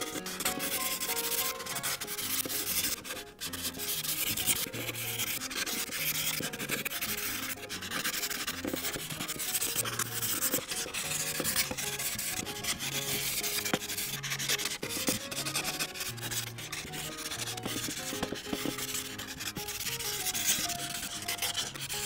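Ohuhu marker tip rubbing back and forth across coloring-book paper in quick, repeated scratchy strokes as it fills in a large area.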